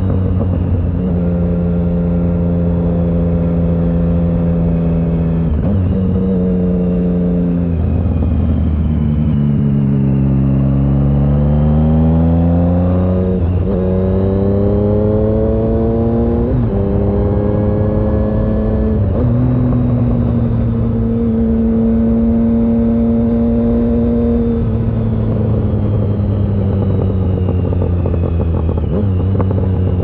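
Triumph Speed Triple 1050's inline three-cylinder engine through a Competition Werkes low-mount exhaust while riding. It holds a steady cruise, falls off as the throttle closes, then pulls twice with rising pitch, each pull cut by a gear change, before settling into a steady cruise again.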